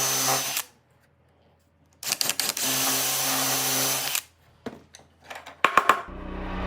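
Electric drill running in two bursts, the first short and the second about two seconds long, with a silent pause between. A few sharp clicks and knocks follow, then music comes in near the end.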